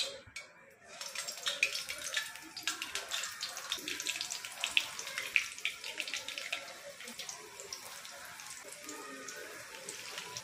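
Bonda batter of ground urad dal and grated potato dropped into hot oil, sizzling and crackling as the fritters deep-fry. The sizzle starts about a second in and crackles most sharply over the next few seconds, then settles into a steadier frying hiss.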